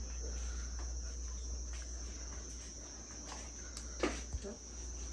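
Crickets chirring steadily in a high, unbroken band, over a low steady rumble, with a couple of faint knocks about four seconds in.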